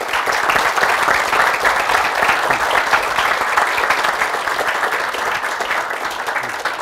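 An audience applauding: dense, steady clapping from many people that eases off slightly near the end.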